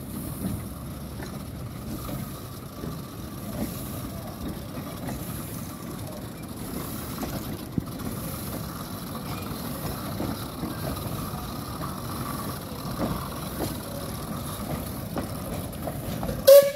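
Narrow-gauge steam locomotive Dolgoch, an 0-4-0 well tank, hauling its wooden coaches slowly along: a steady rumble and rattle of the train rolling on the rails, with scattered light clicks. A single sharp, loud knock comes near the end.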